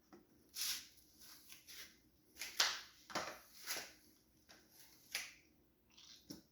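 Oil funnel being tapped and handled to shake out the last of the oil after a fill: a string of short, soft knocks and rustles at irregular intervals.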